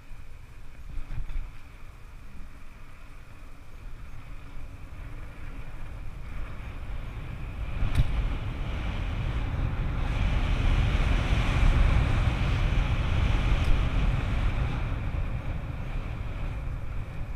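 Wind buffeting the microphone over the rumble of a downhill mountain bike on a dirt trail. It grows louder about eight seconds in, where there is one sharp knock.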